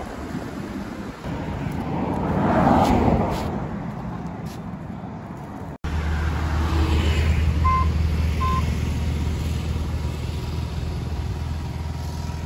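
Wind and road noise from riding an Ather 450X electric scooter, swelling about two seconds in. It then changes abruptly to a steady low hum of road traffic, with two short high beeps a little under a second apart.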